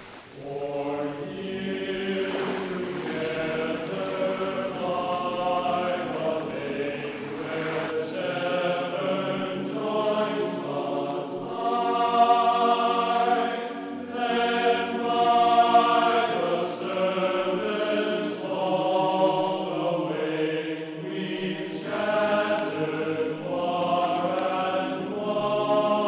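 Background music: a choir singing slow, sustained chords, growing louder in the middle.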